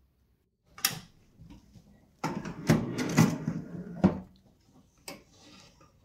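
Kitchenware being handled: a sharp knock about a second in, then a quick run of clattering knocks between about two and four seconds, and a few more after.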